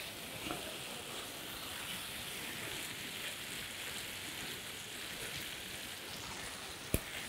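Turkey pieces and tofu frying in a pan, a steady sizzle. A single click near the end.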